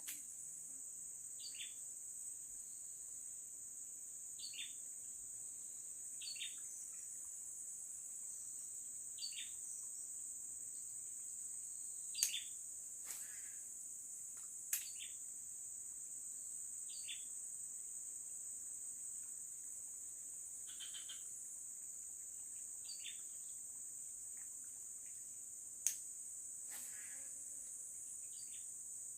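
A steady, high-pitched insect drone, with a bird repeating a short falling call every couple of seconds. A few sharp clicks stand out above the drone, the loudest about twelve seconds in and near the end.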